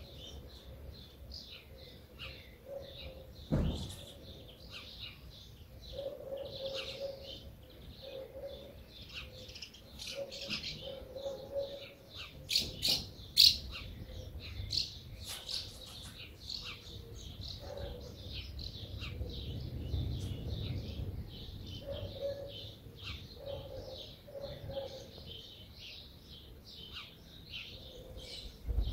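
Small birds chirping and twittering throughout, with a low cooing call repeating every few seconds. A dull thump comes about three and a half seconds in, and a few sharp clicks come near the middle, the loudest sounds in the stretch.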